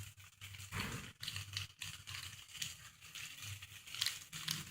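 Light crinkling and tearing of a Maggi masala sachet, with scattered small clicks over a low steady hum.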